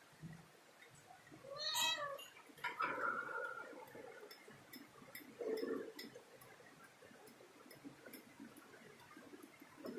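A cat meowing: three calls, the loudest about two seconds in with a rising-then-falling pitch, then two more around three and five and a half seconds in. Faint light clicks are scattered between them.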